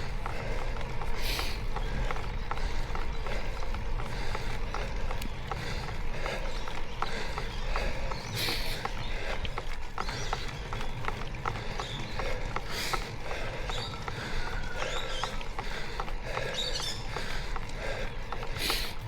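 A cyclist's heavy breathing on a steep uphill climb, over a steady rumble of wind and road and quick mechanical ticking and rattling from the bicycle. Several louder breaths stand out, about 1, 8, 13 and 19 seconds in.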